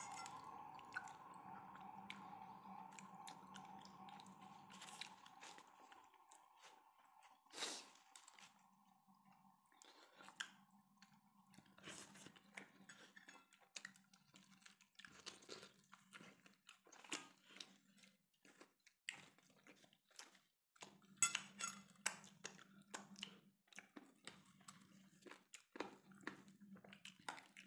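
Faint close-up chewing and crunching of desi chicken curry and roti, with chicken bone being bitten through, as short irregular crunches scattered all through.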